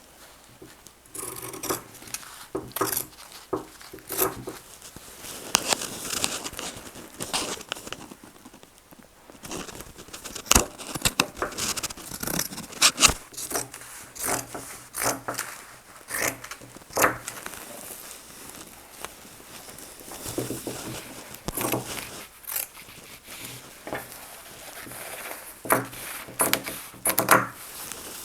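Shears snipping through shirt cotton in an irregular run of crisp cuts, with the fabric rustling and scraping on the table.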